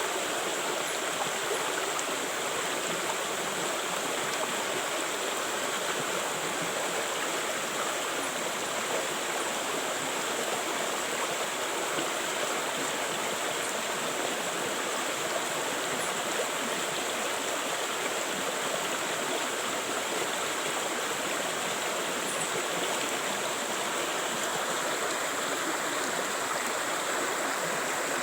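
River flowing: a steady, even rush of moving water, with a thin high hiss over it.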